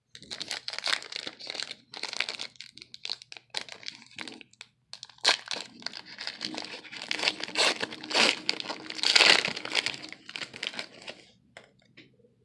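Plastic wrapper of a 2019 Donruss baseball card pack crinkling and tearing as it is ripped open by hand, in a long run of irregular crackles that is loudest about nine seconds in and stops shortly before the end.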